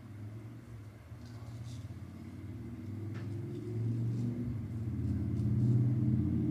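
A low, engine-like rumble that grows steadily louder over several seconds, with a few faint, short scrapes of a razor blade on stubble.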